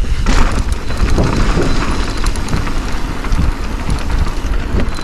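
Mountain bike riding fast down a loose dirt trail: tyres crunching over the surface and the bike rattling over bumps, with wind rumbling on the microphone.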